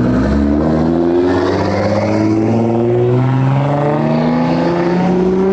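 A car engine accelerating, its pitch climbing steadily under load.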